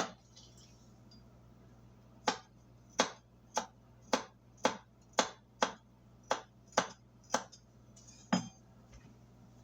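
About a dozen sharp clinks, roughly two a second, from a utensil striking a hard kitchen dish during cooking, over a faint steady hum.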